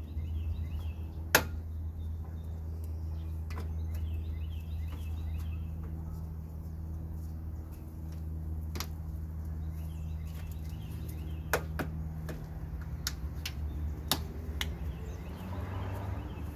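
A handful of sharp clicks and knocks as a car radiator and its fittings are handled and seated in the front core support, the loudest about a second and a half in, over a steady low hum.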